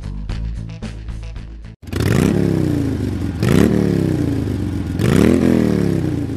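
Background rock music, which cuts off abruptly about two seconds in. Then a Harley-Davidson FLHTC's V-twin, built to 107 cubic inches with a big bore kit and running a 2-into-1-into-2 exhaust, is revved three times, each rev rising sharply in pitch and then falling back.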